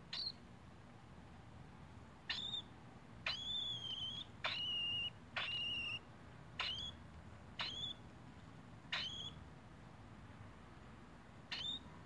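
A month-old cockatiel chick calling about nine times: high, short calls, each a quick upward sweep into a held note. The calls in the middle are longer.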